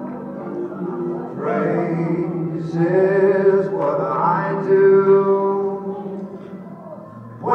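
A man singing long held notes in a gospel service, over a steady musical backing. The voice comes in louder about a second and a half in and dies down near the end.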